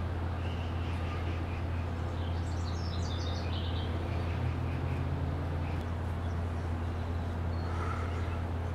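Steady low hum with birds calling over it: a run of quick high chirps about three seconds in, and another bird call near the end.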